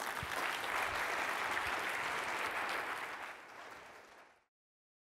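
Audience applauding, steady at first, then fading from about three seconds in and cutting off suddenly just before the end.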